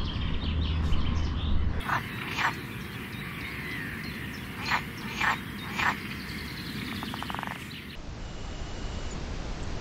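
Outdoor bird chorus, with chirps and warbling song. Several short, loud calls come at intervals, and a quick rattling call follows near the end. The background changes abruptly about two seconds in and again near the end, where it becomes a steady hiss.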